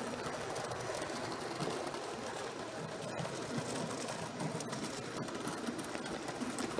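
7mm-scale (O gauge) model freight train running past, a steady whirr and rattle of wheels on the track with a few faint clicks.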